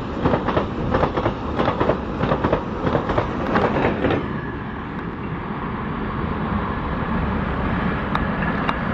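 Container freight train passing close by, its wagon wheels clicking in quick succession over the rail joints. The clicking stops about four seconds in as the brake van at the tail goes past, leaving a steady rumble as the train moves away.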